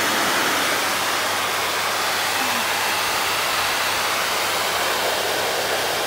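Pet blower dryer sending a steady rush of air through its hose and nozzle onto a husky puppy's fur after a bath.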